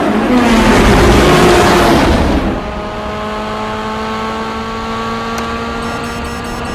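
Street-race cars launching: a loud rush of engine noise as cars pull away and pass for about two and a half seconds, then one car's engine pulling steadily, its pitch rising slowly under acceleration. Faint electronic chirping comes in near the end.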